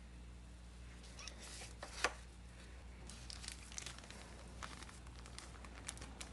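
Gloved hands tearing open and crinkling the parts bag of a new distributor O-ring: a sharp rip about two seconds in, then scattered faint rustling and crackling.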